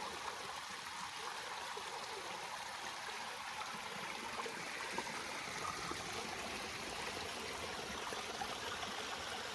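Mountain creek flowing, a steady even rush of water.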